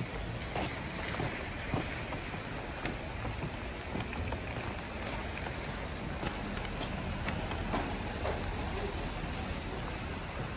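Outdoor ambience on a wet, slushy street: a steady hiss of water and distant traffic, with scattered light clicks and drips.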